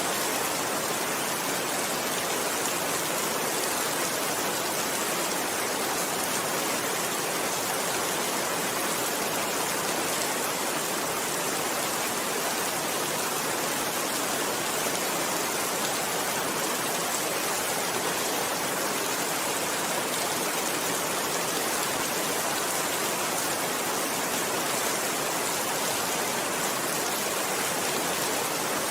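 Rain falling steadily, an even hiss of countless drops with no single drop standing out and no thunder.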